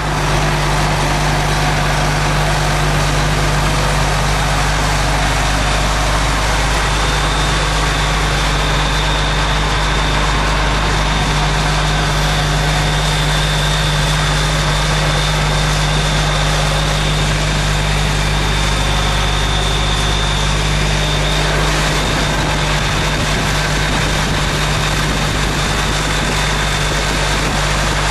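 Case IH 6088 combine's 8.3-litre six-cylinder diesel engine running steadily, a low even drone with a thin steady high whine above it.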